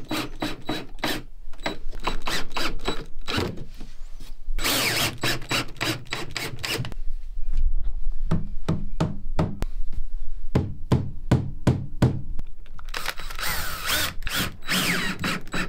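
Cordless drill driving screws into dinette trim in short runs, with a series of rubber mallet taps, about two a second, knocking the trim into place in the middle, and sharp knocks and clicks near the start.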